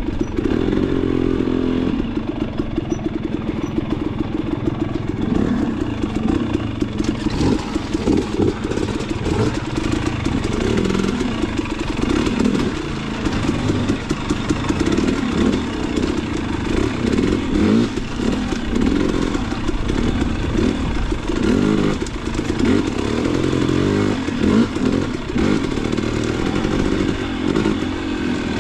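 Enduro dirt bike engine running under load, revving up and down continuously as the bike is ridden.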